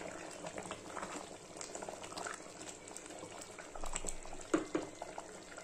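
Water with rice and mushrooms boiling in an open aluminium pressure cooker, bubbling steadily, while a wooden spatula stirs through it.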